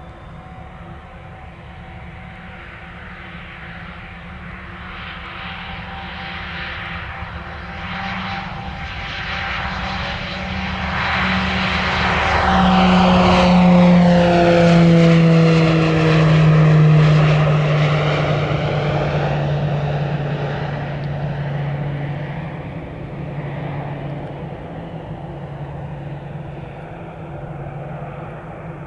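Short SC.7 Skyvan's two Garrett TPE331 turboprops at takeoff power through the takeoff roll and climb-out. The propeller hum and engine whine grow louder to a peak about halfway through as the aircraft passes close, drop in pitch as it goes by, and then fade as it climbs away.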